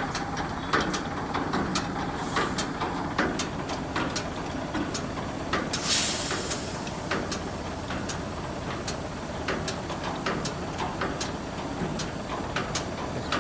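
Heavy truck's engine running steadily at idle, with scattered short clicks. About six seconds in comes a brief hiss of compressed air from the truck's air system.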